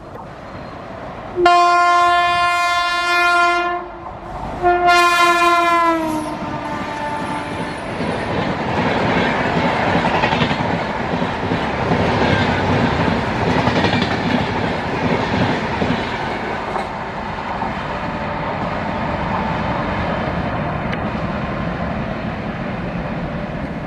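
Train horn of the Chennai-Bangalore Double Decker Express sounding two long blasts, the second dropping in pitch at its end. The train then rushes past with a steady rumble and the clickety-clack of its wheels on the rails.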